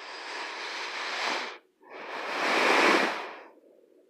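Two long breaths close to the microphone, the second louder, each swelling and then fading.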